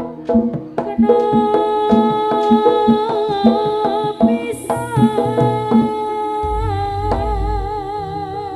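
Live Jaranan gamelan music: a sustained, wavering melody line over a steady pattern of kendang drum strokes, with a deep low boom about six and a half seconds in.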